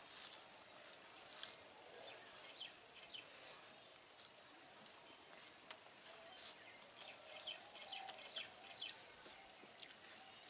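Fingers mixing rice and curry on a banana leaf: faint, scattered soft clicks and squelches.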